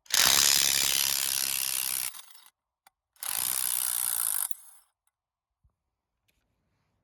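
RIDGID 18V brushless subcompact half-inch impact wrench hammering in two bursts, about two seconds and then just over a second, to loosen a trailer lug nut.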